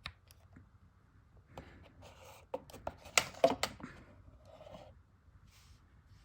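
Plastic handling sounds as a power cord is fitted into a USB charger: light scraping, then a cluster of sharp clicks and knocks about three seconds in.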